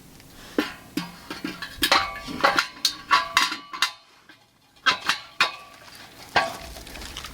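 Metal clanking and clinking: hard metal pieces knocked together, each strike leaving a short ringing tone, in two runs of strikes with a brief pause between.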